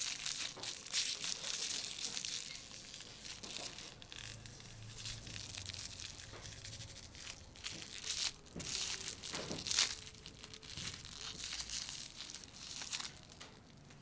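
Aluminium foil crinkling and crackling as hands unwrap a small foil packet, a dense run of sharp crackles that dies away near the end.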